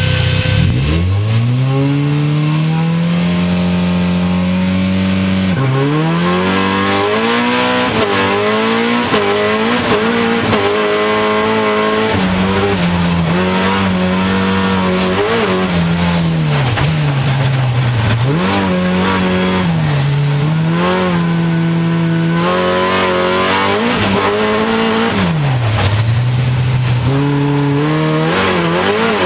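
Hyundai Accent rallycross car's engine heard from inside the cockpit, pulling away from a standstill about a second in and then revving hard, its pitch repeatedly climbing and dropping with gear changes and slowing for corners.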